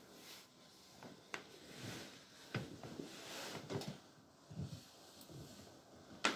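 Faint, irregular knocks, clicks and rustling, like things being handled or moved, with a sharp click near the end.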